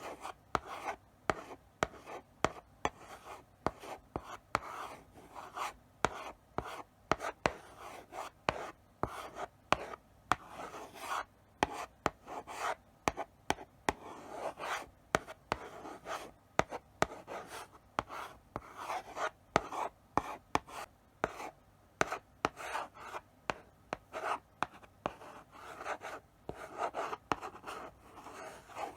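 Chalk writing slowly on a blackboard: irregular scratchy strokes with sharp taps as the chalk meets the board.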